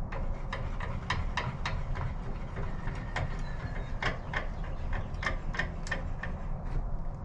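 Bauer 17-inch variable-speed drill press cutting a hole, its bit chattering in the work: irregular sharp ticks, two or three a second, over the steady motor hum. The chatter comes from stepping up to a large 5/8-inch bit after drilling a pilot hole.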